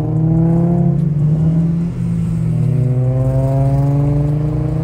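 Car engine accelerating, its pitch climbing steadily. It drops off briefly about two seconds in, then climbs again.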